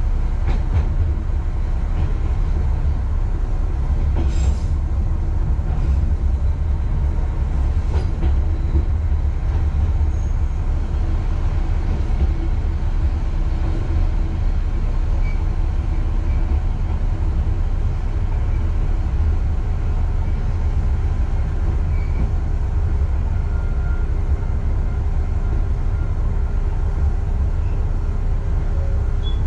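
Diesel railcar running slowly along the line, its engine giving a steady low rumble heard from the cab. There are a few faint clicks from the wheels, and a steady hum grows stronger over the last several seconds.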